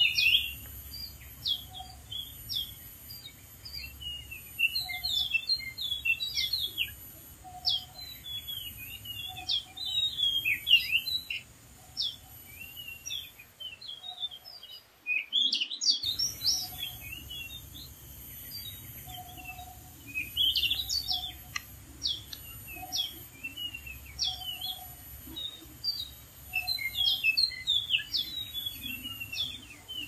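Oriental magpie-robin singing a long, varied song of sweet whistles and quick chirps, broken by a short pause about halfway. A faint low note repeats about once a second underneath.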